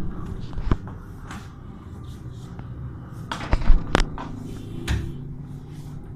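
Scattered knocks and bumps in a small room, with a short clatter just after three seconds in and the loudest, a sharp click, about four seconds in.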